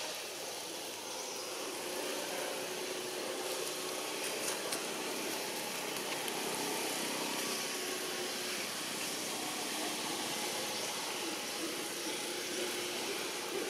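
Steady outdoor background noise with a faint, even motor hum, such as distant traffic.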